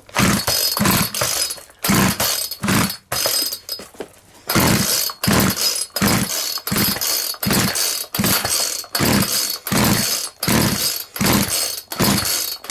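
McCulloch Mac 441 two-stroke chainsaw being pull-started again and again, the engine turning over in short rhythmic strokes about twice a second without catching.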